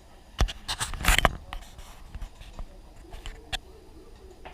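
A dog eating from its food bowl: a burst of knocks and clatters about a second in, then lighter scattered clicks of chewing and the bowl.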